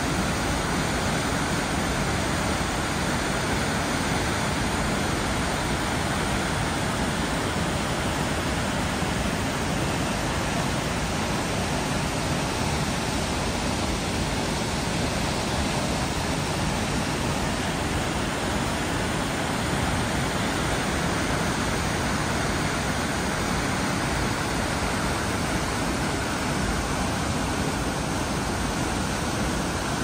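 Looking Glass Falls in high flow after rain: a steady, unbroken rush of a large waterfall plunging into its pool.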